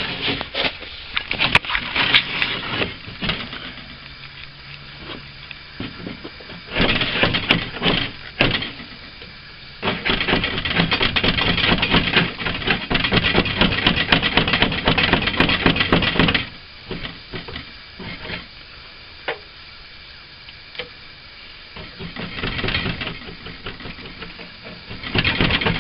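Hand tool scraping and rubbing on a wooden window frame in bouts, the longest starting about ten seconds in and running for about six seconds, with scattered sharp cracks and knocks.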